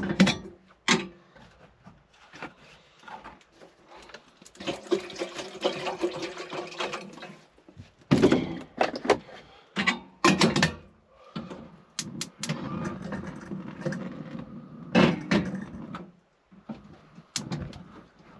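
Knocks and clatter of a metal stovetop kettle and its lid being handled and set down on a gas hob, with a few seconds of steady rushing noise about five seconds in.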